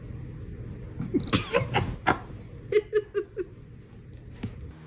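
A dog yawning: a few rising squeaky sounds about a second in, then a quick run of about five short squeaks, with soft clicks of the jaw or mouth.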